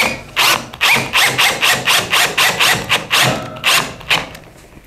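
Bosch GSR 12V cordless drill/driver running in a quick series of short bursts, about three a second, each with a brief rattling whine.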